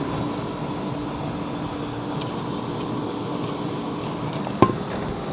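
Steady mechanical hum of running machinery, with one sharp click of hard parts knocking together near the end.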